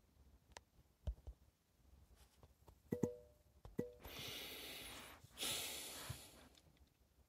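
A person breathing close to the microphone in a pause between sentences: two breaths without voice, a longer one about four seconds in and a shorter one just after, preceded by a few faint mouth or handling clicks.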